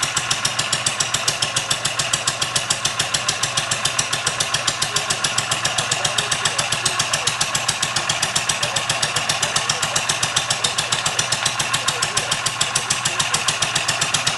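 A scratch-built 155cc four-stroke, water-cooled single-cylinder engine, made largely from smelted beer-can aluminum, running steadily at idle. Its firing comes as an even beat of about six pulses a second.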